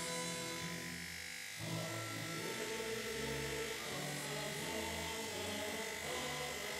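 Electric hair clippers buzzing steadily as they cut through hair.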